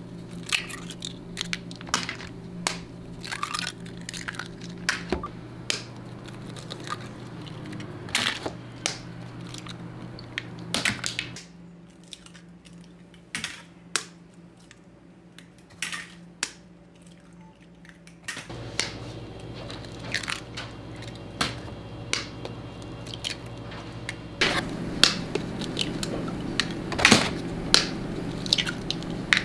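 Brown chicken eggs being cracked open by hand over a plastic tub, one after another: repeated sharp shell cracks, irregular, about one or two a second, over a steady low background hum.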